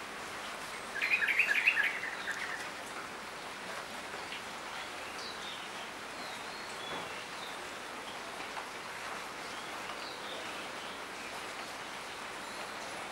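Steady rain falling, with birds chirping now and then. About a second in, one bird gives a loud, rapid chattering call lasting about a second.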